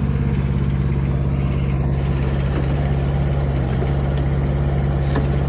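DigMaster DM200 mini excavator's engine running steadily as it digs, with a slight shift in its pitch about three and a half seconds in. A single light click near the end.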